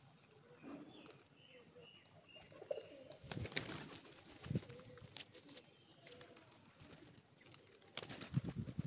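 A flock of rock pigeons cooing softly, with flurries of wing flaps, loudest in a burst of flapping near the end.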